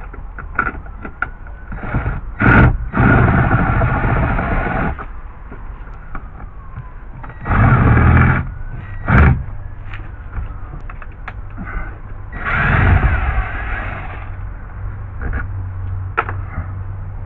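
Screw gun (power drill-driver) running in several short bursts of one to two seconds each, its motor whining as screws are backed out, with clicks and knocks of handling between the bursts.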